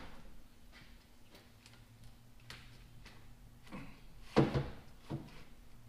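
Cast-iron cylinder head of a Detroit Diesel 2-53 being handled on a workbench: faint clinks, then a heavy clunk about four and a half seconds in and a smaller knock a moment later as it is set down.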